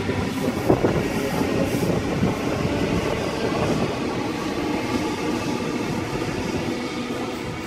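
Sydney Trains Waratah electric train departing, its cars rolling past close by with a steady running rumble of wheels on rails that fades slowly as the last cars draw away.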